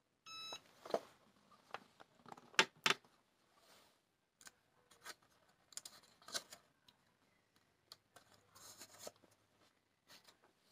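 A short electronic beep from a handheld heat press, then two sharp knocks as the press is handled, followed by the crinkle and rustle of sublimation transfer paper being peeled off a paper towel sheet.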